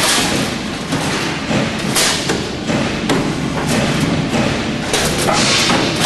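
Cable tray roll-forming machine running, perforated steel strip feeding through its forming rolls, with a steady mechanical din and irregular sharp knocks a few times a second apart.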